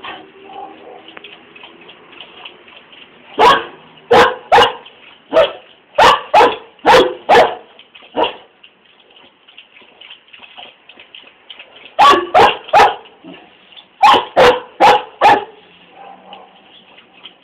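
A dog barking in three bouts of short, sharp barks: about nine in a row from a few seconds in, then three, then four more.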